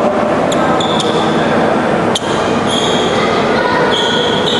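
Basketball game in an echoing gym: a steady din, several short high squeaks of sneakers on the court floor, and one sharp bounce of the basketball about two seconds in.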